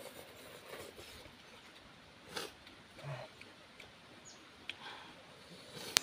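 Faint scattered clicks and rustles of people eating with chopsticks off a banana leaf on leaf-littered ground, with one sharp click just before the end.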